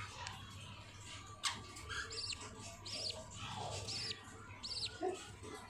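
Budgerigars chirping: short, high, repeated chirps about once a second, with a sharp click about a second and a half in, over a steady low hum.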